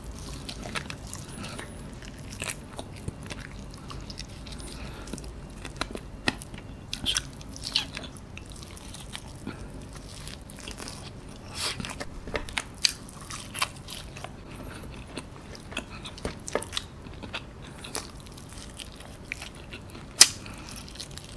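Close-miked eating of fried chicken: biting and chewing, with many irregular sharp mouth clicks and one louder click near the end.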